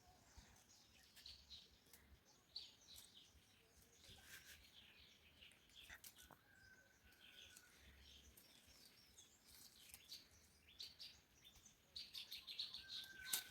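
Faint birds chirping: scattered short high chirps and twitters, a couple of brief held whistles, growing busier near the end, with a few faint clicks.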